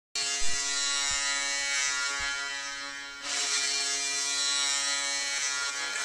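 Ice hockey goal horn blowing: a steady buzzing blast of about three seconds, then a second blast from about three seconds in. Under the first blast are a few low thumps, the loudest about half a second in.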